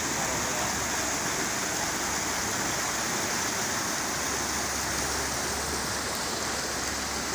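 Heavy rain falling, a steady even rush of water noise.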